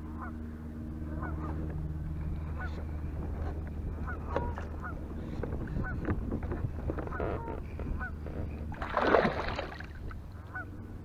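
Geese honking off and on, many short calls at irregular intervals, over a steady low hum. About nine seconds in there is a louder rush of noise lasting about a second.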